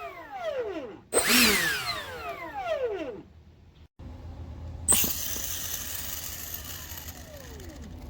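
64 mm electric ducted fan on an E-flite A-10 given short throttle bursts, its whine falling in pitch as the fan spins down, twice in the first three seconds; this is the motor described as sounding good. About five seconds in, a motor starts suddenly and runs with a steady rushing sound and one slowly falling tone.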